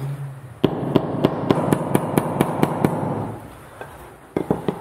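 Steel-headed hammer tapping a hardwood insert strip laid on a wooden block, a quick run of sharp light blows at about five a second for two seconds, then a few more taps near the end. This is kigoroshi: crushing the wood fibres so the insert slips more easily into its cut-out.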